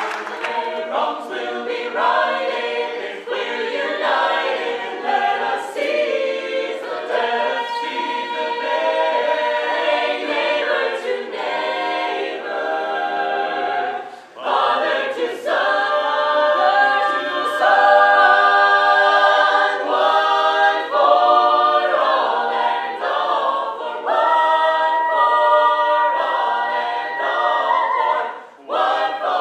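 An a cappella vocal ensemble singing in close harmony, with no instruments. The singing breaks off briefly about halfway through and again near the end, between phrases.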